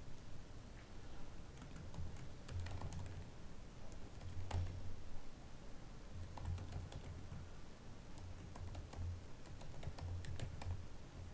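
Typing on a computer keyboard: irregular key clicks, scattered and in short runs.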